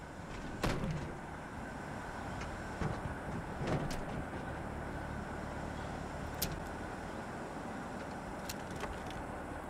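Steady low rumbling ambience around a derelict vehicle, broken by a handful of sharp knocks and clicks, the loudest about a second in.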